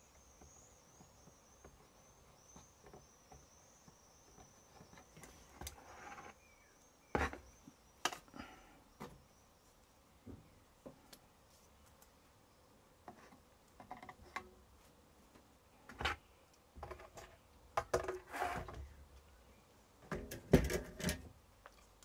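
Spring-loaded desoldering pump (solder sucker) being cocked and fired on a circuit board's solder joints: a series of sharp snaps and clicks, with a quick cluster of knocks near the end as the board is handled. A faint high wavering whine fades out about halfway through.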